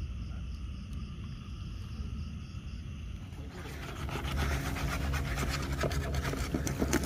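Outdoor ambience: a low steady rumble with faint insects chirping about three times a second. About three and a half seconds in, it gives way to a louder rushing hiss with rapid crackles.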